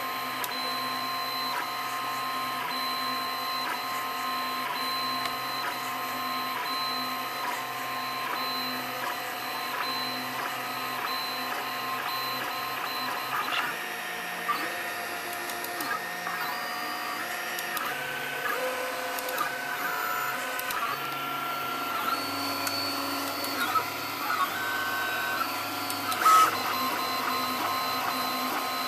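Desktop 3D printer printing, its stepper motors whining in pitched tones that hold and then jump to new pitches as the print head changes direction and speed, over a steady machine hum. A few short clicks, the loudest about 26 seconds in.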